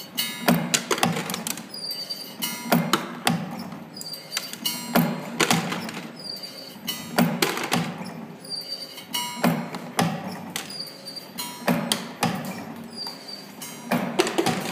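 Camless CNC spring forming machine running its forming cycle on flat wire: a cluster of sharp metallic clicks and knocks with a ringing edge as the slides strike, bend and cut the wire. The cluster repeats about every two and a quarter seconds, one cycle per clip spring.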